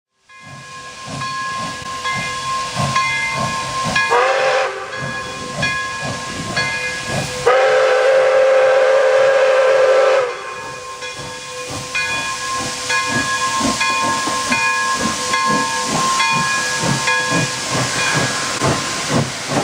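Pere Marquette 1225, a 2-8-4 Berkshire steam locomotive, working with rhythmic exhaust chuffs and hissing steam. Its chime whistle sounds a short blast about four seconds in, then a longer, louder blast from about seven and a half to ten seconds.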